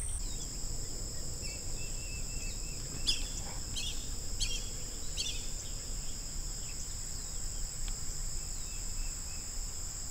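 Steady high-pitched insect chorus droning on two pitches. A bird chirps a few short calls in the first half.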